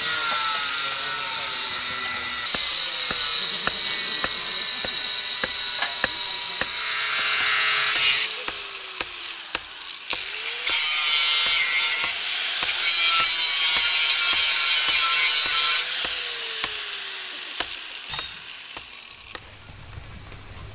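Electric angle grinder running loud and grinding steel rebar brackets. Its whine drops in pitch as the disc is pressed on, it grinds hardest twice in the middle, and it winds down near the end. Regular sharp knocks sound alongside it.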